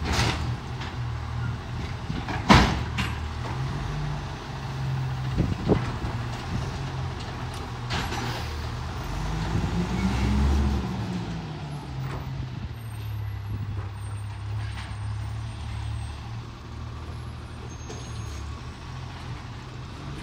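Autocar ACX garbage truck's diesel engine running, revving up and back down about ten seconds in as the truck moves off. There is a sharp loud clank about two and a half seconds in, with lighter knocks near the start and around five and a half seconds.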